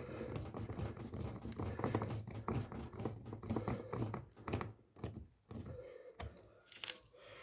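Irregular clicks and knocks of a hand tool and metal parts while bolts are tightened down on a washing machine gearbox, with a low handling rumble through the first half.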